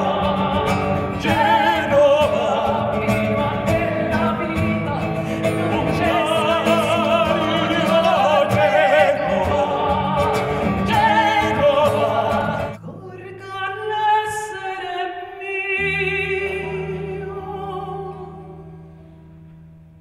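Live song: a woman singing with strong vibrato over full band accompaniment. About thirteen seconds in, the accompaniment cuts off abruptly. Her voice carries on over a low held note, and both fade toward the end.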